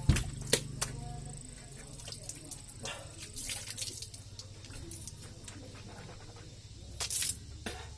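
Water sloshing and dripping in a plastic dipper while a man drinks from it. There are a few sharp clicks in the first second and a louder burst of water noise near the end.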